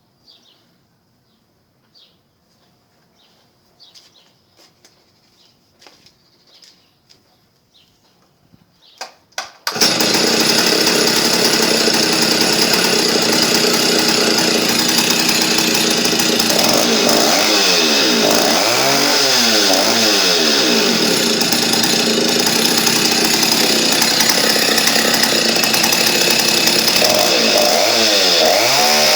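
Stihl 08S two-stroke chainsaw, fitted with a 49 mm piston, being started: a few sharp pulls about nine seconds in, then it catches and runs loud and steady for the rest of the time. Faint chirps and clicks are heard before it starts.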